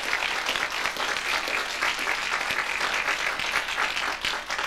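Audience applauding: many hands clapping steadily in a dense patter.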